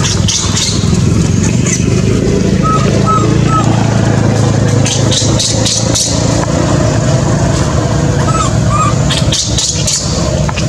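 A motor engine running steadily with a low hum. Short faint chirps come in a group of three about three seconds in, and a pair near the end.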